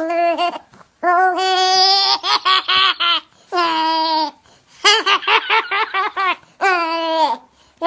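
A high-pitched voice laughing hard and long. Drawn-out cries break again and again into fast rhythmic ha-ha-ha bursts.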